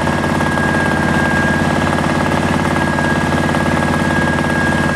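Homemade air raid siren with three fluted ports running flat out, a loud steady wail held on one high pitch over a steady low hum.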